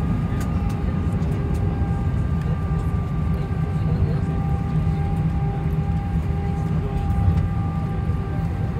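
Cabin noise of an Airbus A321 rolling slowly off the runway after landing: a steady low rumble from the wheels and engines, with a few faint, steady whining tones fading in and out.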